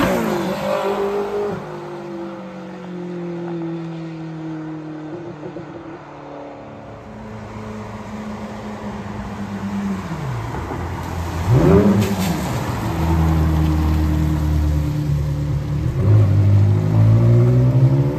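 Ferrari 360 Spider's 3.6-litre V8 through a Tubi exhaust, passing close with its note dropping as it pulls away. It comes back, gives a quick rev that rises and falls about twelve seconds in, then accelerates with the revs climbing near the end.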